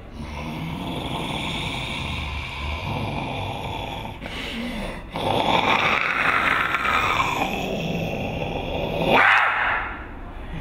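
A performer's rough, breathy monster growl, a zombie voice for a horror film, in two long stretches with a short break about four seconds in; the second stretch is louder, peaks and stops about a second before the end.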